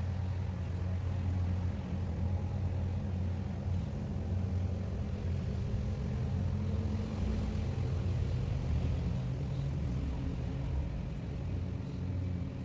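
A steady low mechanical rumble with a hum.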